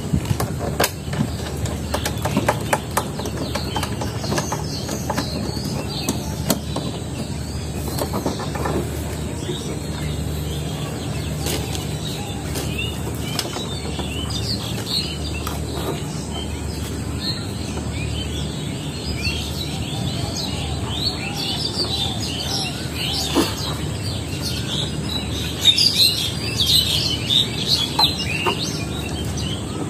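Small birds chirping and twittering, most busily in the second half, over a steady low hum. A few sharp clicks and knocks in the first seconds come from parts being handled as a motorcycle fuel tank is fitted.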